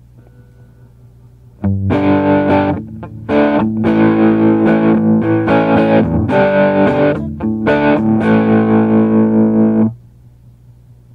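Les Paul-style electric guitar with Singletone Southern Cross humbucking pickups, played through a distorted amp: chords strummed for about eight seconds, starting a couple of seconds in and stopping shortly before the end. A low amp hum sits underneath before and after the playing.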